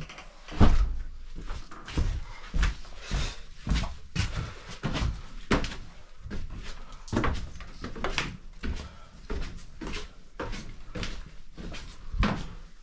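Footsteps knocking on wooden floorboards, an irregular run of thumps about one or two a second.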